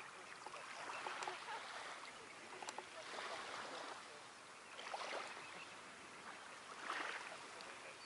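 A vast flock of red knots in flight: a dense rushing noise of massed wings and calls that swells and fades about every two seconds.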